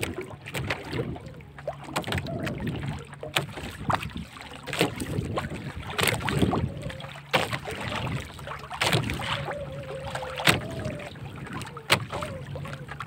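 Sharp knocks and clatter on a wooden outrigger boat as a longline is hauled in hand over hand and dropped into a wooden box, over a steady background of wind and water; the loudest knocks come about six, nine and twelve seconds in.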